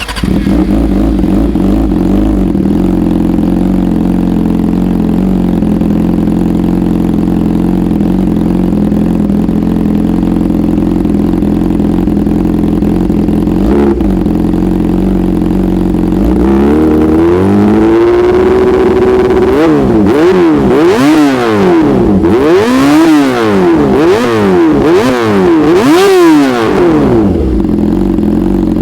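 2013 Yamaha YZF-R6's inline-four engine with a slip-on exhaust idling steadily with a snoring note. About sixteen seconds in it rises to a held higher speed, then gives a series of quick throttle blips, each revving up and dropping back, before settling to idle near the end.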